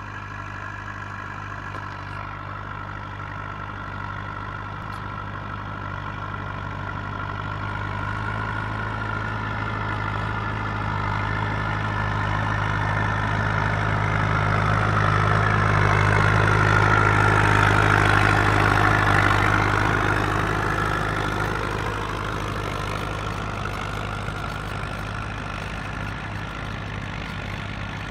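Rakovica tractors' diesel engines running steadily under load while pulling ploughs. One tractor grows louder as it passes close, loudest just past halfway, then fades as it moves away.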